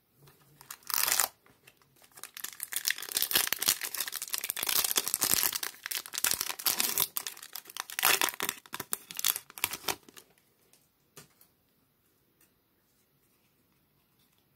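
Foil wrapper of a 2013 Topps Mini baseball card pack being torn open and crinkled: a short sharp rip about a second in, then about eight seconds of crinkling and tearing. After that only a few faint clicks.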